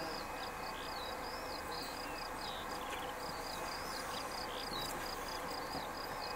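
Continuous high-pitched chirping, short flat and gliding notes following several times a second, over a faint steady rumble of a distant airliner landing.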